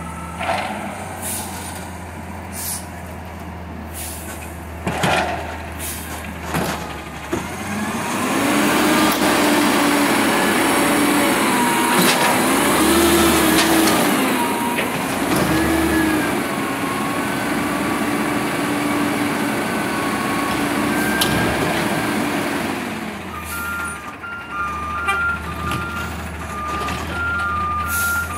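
McNeilus Meridian front-loader garbage truck on a Peterbilt 320 chassis working a dumpster. The engine idles with a few knocks and clanks, then revs up to drive the hydraulic arms, with a whine that rises and falls as the dumpster is lifted over the cab and emptied, and a crash around the middle. Near the end the engine drops back and a reversing beeper starts up.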